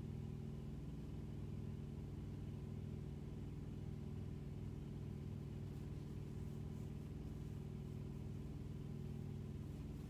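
A vehicle engine idling, a steady low hum heard from inside the cab.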